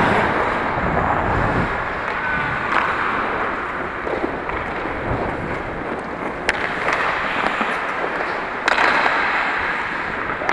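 Ice hockey skate blades scraping and gliding on the ice, a steady hiss that swells and eases, with a few sharp clacks of sticks and puck.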